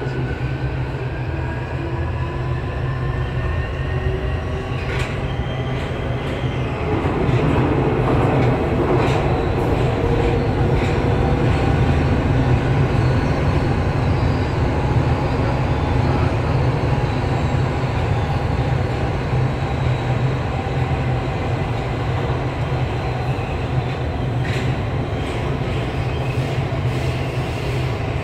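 Budapest Metro M4 Alstom Metropolis train running through a tunnel, heard from inside the front car: a steady low rumble of wheels and running gear. A motor whine rises in pitch over the first several seconds as the train gathers speed. There are a couple of brief clicks.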